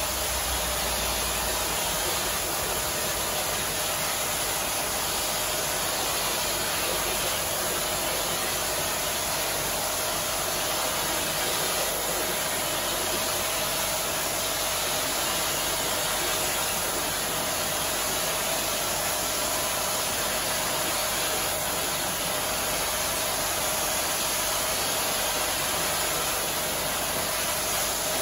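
Pressure washer spraying a high-pressure jet of water into a wet shaggy rug: a steady hiss of spray.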